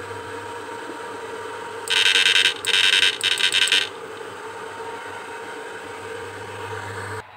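Susan 1030 SMP electric fish-shocker inverter humming steadily, then giving a loud buzz in three quick bursts over about two seconds as it fires its pulses into a 200-watt lamp. The hum cuts off near the end.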